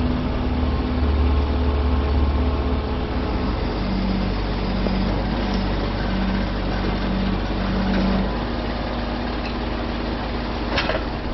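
A heavy vehicle's engine running steadily with a deep low rumble. A low hum pulses about once a second for a few seconds in the middle, and there is one short clank near the end.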